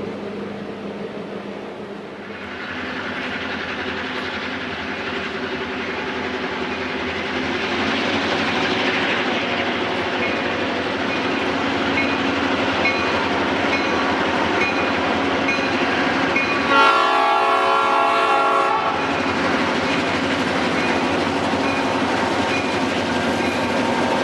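Diesel locomotives of a freight train running and approaching, with engine and rail noise that grows louder about two seconds in. A bell dings steadily through the second half, and the horn sounds one blast of about two seconds near the end.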